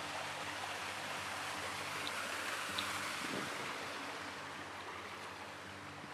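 A mountain stream and small waterfall rushing steadily, with a brief low thump about three seconds in.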